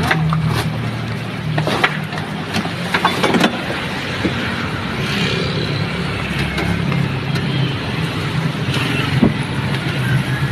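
Old garbage compactor truck's engine running steadily while its packer works the load, with several sharp clanks from the hopper. The compactor's chain is slipping, which the operator puts down to it being very loose from age.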